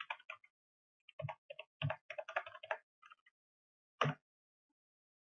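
Computer keyboard keys being typed in quick runs of short clicks, then a single louder click about four seconds in.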